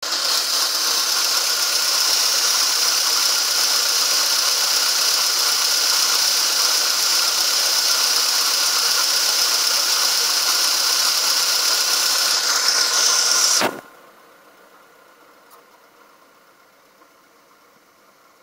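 2009 Ford Ka engine running with a loud, steady hissing noise, the strange, annoying noise its owner likens to a sneeze, cause unknown. It cuts off abruptly about fourteen seconds in, leaving only a faint steady hum.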